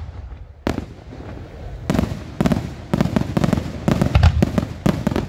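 Aerial firework shells bursting in the sky: a single bang, then from about two seconds in a fast run of sharp bangs, each trailing a low rolling rumble.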